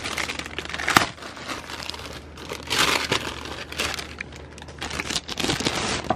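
Plastic packaging and a holographic plastic bag crinkling and crackling as they are handled and pulled apart, in irregular rustles with a sharp crackle about a second in and a dense stretch of crinkling around three seconds in.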